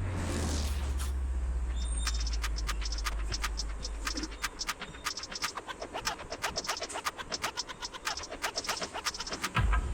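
Electronic background music: a deep held bass note that dies away about halfway through, with quick, fairly regular clicking percussion, and a new bass note coming in near the end.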